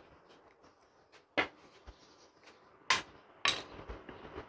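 Three sharp metal clicks as tools and small parts knock against a Honda Scoopy-i throttle body being taken apart, the last two about half a second apart.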